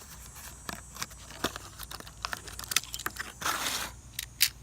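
A Hot Wheels blister pack being opened by hand: scattered clicks and crinkles of plastic and card, with a short tearing rasp about three and a half seconds in.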